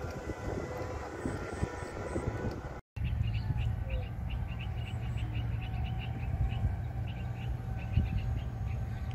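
A farm machine's diesel engine running steadily. After a sudden cut about three seconds in, it gives way to a quieter low rumble with quick, evenly repeated high chirps, about four or five a second.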